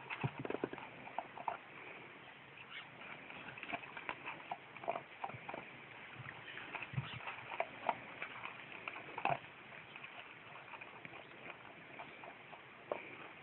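Basset hound puppies shifting about on a wooden bench, giving scattered faint light knocks and scuffs.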